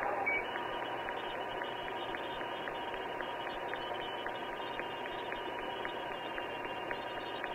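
Steady hiss and hum of a police cruiser's dash-camera audio, with a faint constant tone and light ticking about twice a second.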